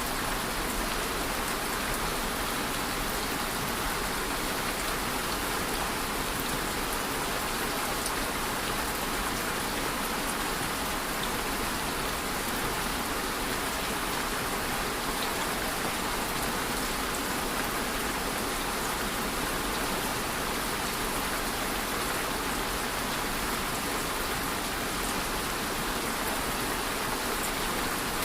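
Steady rain falling, an even hiss with faint individual drop taps.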